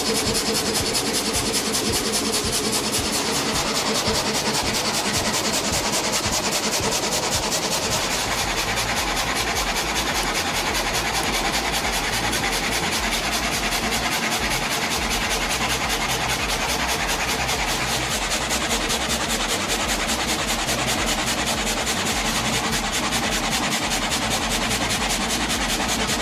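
Power saw cutting through wood in one continuous steady rasping cut.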